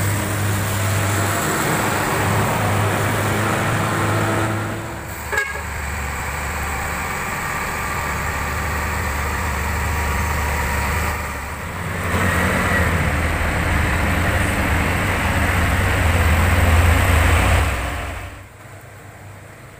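Heavy loaded trucks' diesel engines labouring uphill at low speed, a loud, steady low engine note over the hiss of heavy rain and wet tyres. The engine sound falls away about 18 seconds in, leaving mostly rain.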